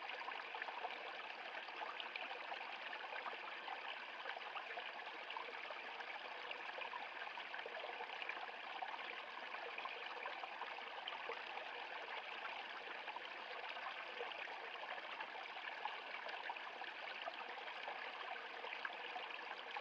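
Stream water flowing steadily over rocks, a continuous bright splashing and gurgling with little deep rumble.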